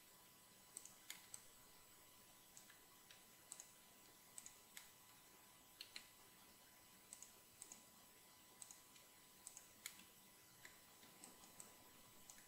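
Faint, scattered clicks of a computer mouse and keyboard, many in quick pairs, as edges are selected and faces filled with the F key.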